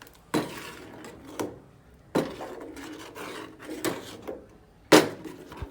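Kitchen pots and utensils knocking and clattering, with about five separate clunks roughly a second apart; the loudest comes near the end.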